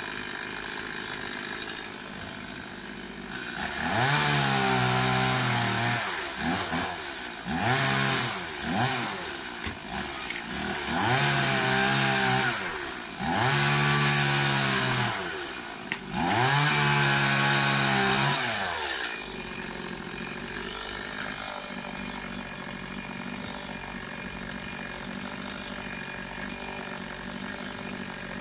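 Chainsaw idling, then revved in about six bursts of one to three seconds each, the pitch climbing and falling with each cut into a coconut palm's crown, before dropping back to a steady idle for the last several seconds.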